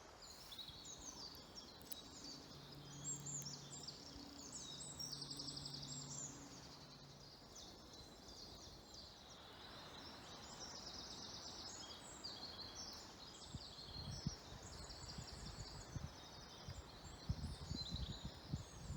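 Several songbirds chirping and trilling throughout, faintly. A faint low hum comes in for a few seconds early on, and soft low thumps come in the last few seconds.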